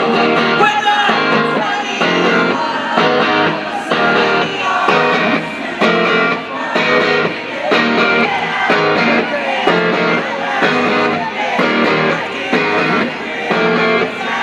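Guitar strummed in a steady rhythm, about two strums a second, with singing over it.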